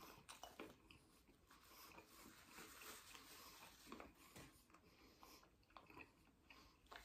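Faint, close chewing and mouth sounds of a man eating a sauced chicken wing, with small soft clicks scattered throughout; otherwise near silence.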